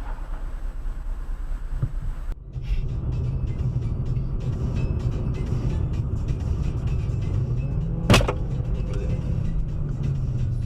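Steady car engine and road rumble heard from inside a vehicle, with one sharp, loud bang about eight seconds in that rings briefly.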